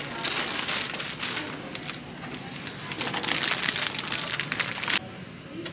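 Clear cellophane wrap around a bundle of decorative pine cones and sprigs crinkling as it is handled, a dense crackle that stops abruptly about five seconds in.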